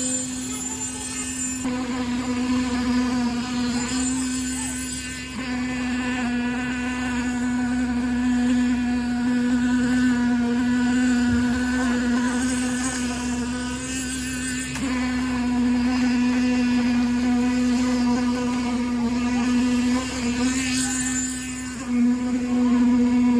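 A motor running steadily with a constant hum at one pitch, its sound shifting slightly a few times without stopping.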